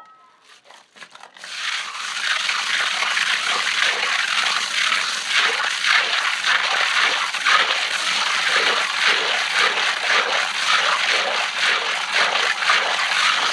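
Whole freshwater marsh snails being ground in a stone mortar with a hand-held stone: a dense, continuous crunching and crackling of shells breaking, wet with a little water. It starts about a second and a half in.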